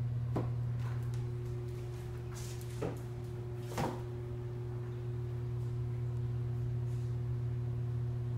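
A steady low hum, with a few light knocks and a short rustle in the first four seconds, the last knock the loudest.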